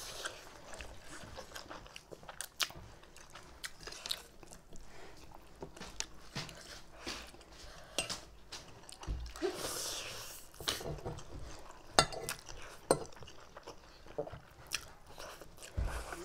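Close-up chewing of spicy instant noodles eaten with forks, with scattered sharp clicks of forks against the plates, the loudest about twelve seconds in.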